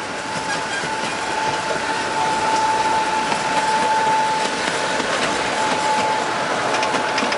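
Miniature park train, a replica steam locomotive pulling open passenger cars, running past on its narrow track. A steady running noise with a high whine swells as the engine passes about two to four seconds in, with light clicks from the wheels on the rails.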